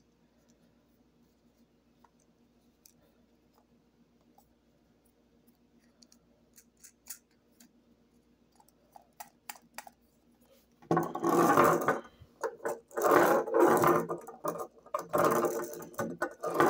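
A small plastic penguin toy is handled with faint clicks, then its mechanism rattles and grinds loudly in clumps about a second long against a wooden tabletop, starting about eleven seconds in.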